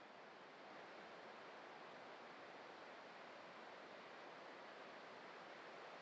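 Faint, steady rushing noise of Victoria Falls: the waterfall's roar and spray heard from a distance.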